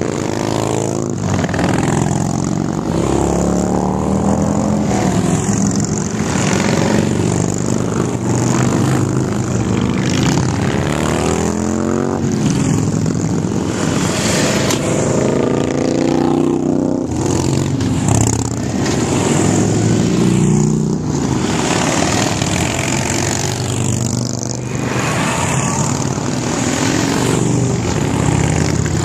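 A procession of cruiser and touring motorcycles riding past one after another, their engines running continuously, each one swelling and then falling in pitch as it goes by.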